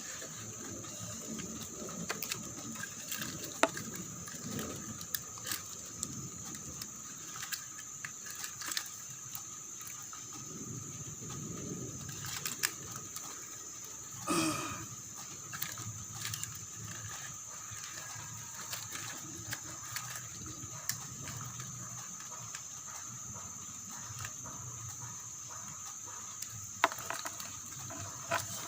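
Scattered sharp clicks and taps of a blade carving a coconut shell, over a steady high-pitched insect drone. About halfway through comes one short, louder sound with a falling pitch.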